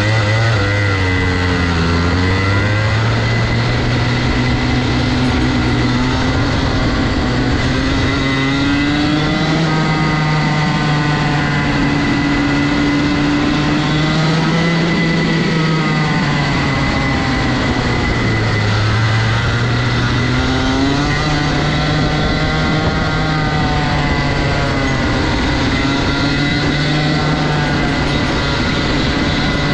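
2008 Rotax 125 cc single-cylinder two-stroke kart engine running hard on track, its pitch climbing and dropping again and again as the kart accelerates and slows.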